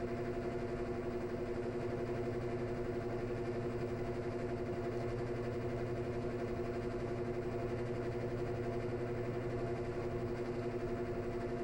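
Washing machine drain snoring: a steady, unbroken drone with several held tones.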